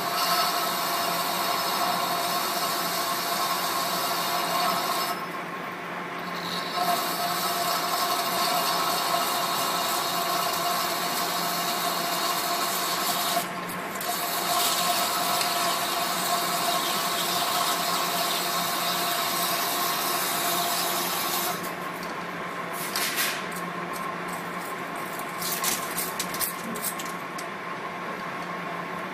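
Large engine lathe facing a wide metal disc: the tool cutting steadily with a ringing whine over the machine's hum. The cut drops off briefly about five seconds in and again near the middle, and the last several seconds turn choppier, with scattered sharp clicks.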